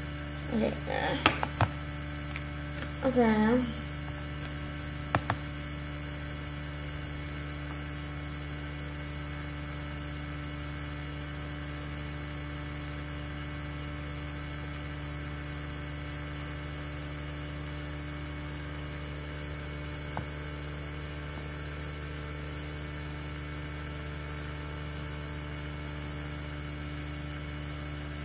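Steady low electrical hum on the recording, with a few sharp clicks in the first few seconds.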